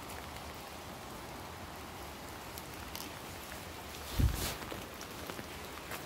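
Steady light rain falling on bamboo leaves and leaf litter, with scattered drop ticks. A brief dull thump about four seconds in is the loudest sound.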